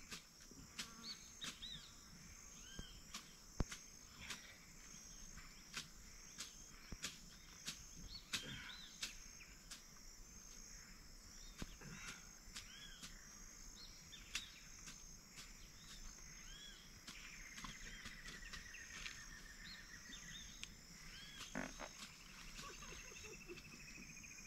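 Tropical farmland wildlife: a steady high insect chorus with many short chirping calls scattered through it, a long trilling call about two-thirds of the way through and another near the end, and occasional faint clicks and knocks.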